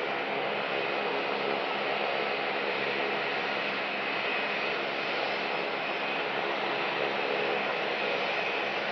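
Jet engines of an Airbus A321 airliner running at taxi idle: a steady rushing hiss with a faint thin high whine.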